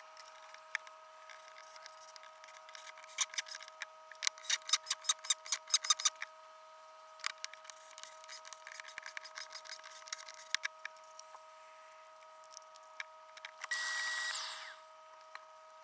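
Sharp clicks and taps of steel brackets and screws being handled and driven into wood, a quick run of them a few seconds in, then scattered ones. Near the end a shop vacuum sucks for about a second with a high whine; this is the loudest sound.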